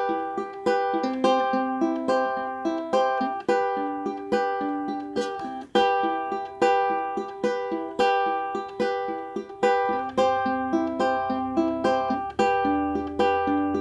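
BWS UK-26 tenor ukulele, sapele body and nylon strings, played in chords in a steady rhythm. Each stroke rings out and decays before the next.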